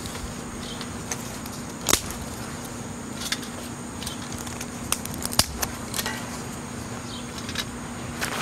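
Dead sycamore twigs being pushed into a wire-mesh wood stove: scattered sharp clicks and light knocks of wood against wood and against the wire.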